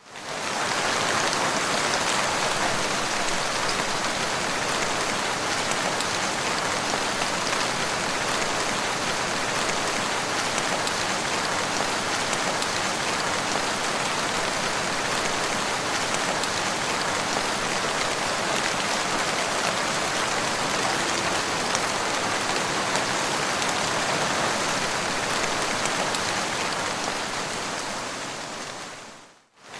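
Steady rain falling, drops pattering on the ground in an even hiss. It fades in at the start and briefly fades out near the end.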